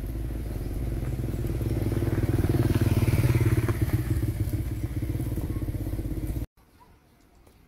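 A motor vehicle engine running close by, swelling to its loudest about three seconds in and easing a little, then cut off abruptly about six and a half seconds in, leaving faint background.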